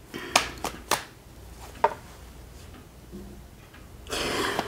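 Tarot cards being shuffled by hand: a few sharp clicks of cards striking in the first two seconds, then a short rustling burst of cards sliding together near the end.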